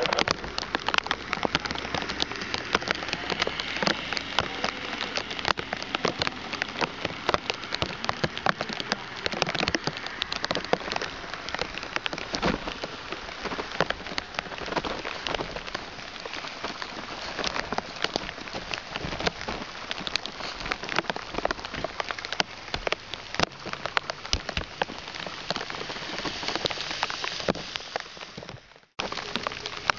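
Rain falling steadily, a dense patter of drops close to the microphone. It cuts out briefly about a second before the end.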